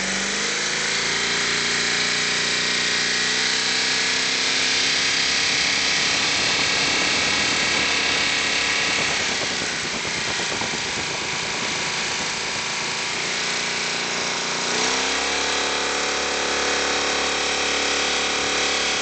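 Jet boat engine running hard, rising in revs just after the start, wavering through the middle, and revving up again about fifteen seconds in.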